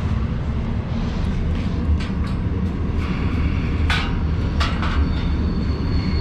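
Steady low rumble, with a few sharp clicks about four seconds in and a faint high thin tone starting near the end.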